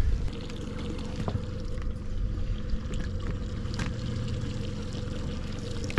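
Water trickling and splashing around a small boat over a steady low motor hum, with a sharp knock at the very end.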